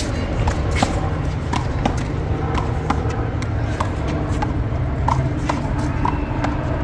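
One-wall handball rally: the small rubber ball smacking off the concrete wall and players' hands and bouncing on the court, a quick run of sharp knocks mixed with footsteps scuffing on concrete, over a steady low rumble of traffic.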